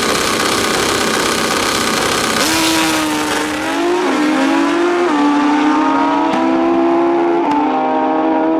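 Two wheelie-bar drag-racing motorcycles held at high revs on the start line, launching about two seconds in and accelerating hard down the strip. The engine pitch climbs and drops sharply at each quick upshift, several times over.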